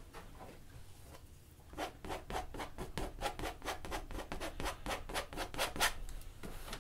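Painting knife scraping across a stretched canvas in quick short strokes, about five a second, starting about two seconds in, as it lays thin white oil paint onto the painted mountains.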